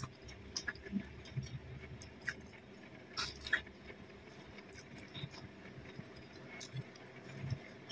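Faint close-up chewing of a mouthful of food, with soft wet mouth clicks scattered throughout and a few sharper clicks about three seconds in.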